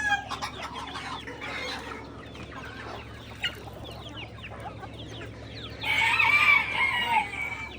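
A flock of chickens clucking, with many short, high peeps throughout. Near the end a rooster crows once, loudly, for about a second and a half.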